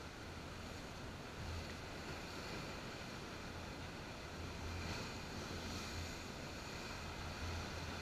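Mediterranean surf breaking and washing over rocks, a steady rushing wash that swells a little a few times. Wind rumbles on the microphone, and the GoPro's waterproof case muffles the sound.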